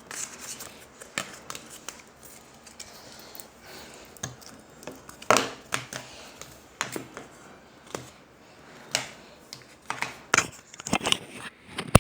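Slime being squeezed and worked by hand, making irregular sticky clicks and pops.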